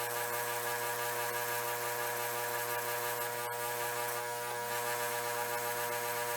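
Electric power tool spinning a 180-grit fiber abrasive wheel, running with a steady whirring hum, as it sands a wooden screwdriver handle.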